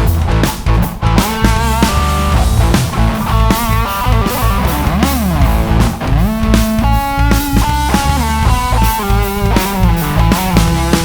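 Rock band playing: an electric guitar lead line with pitch bends and slides over bass and drums.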